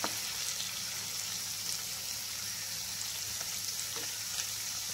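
Masala-coated paneer pieces shallow-frying in hot oil in a small kadai: a steady sizzle with a few faint scattered crackles as the pieces brown.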